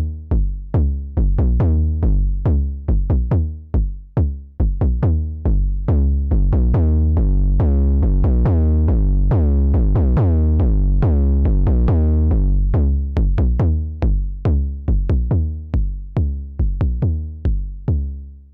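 KORG Volca Kick analog synthesizer playing a sequenced pattern of punchy kick and deep bass notes at changing pitches, about three to four hits a second. In the middle the notes run together into a sustained bass line, then go back to short hits, and the pattern stops abruptly at the end.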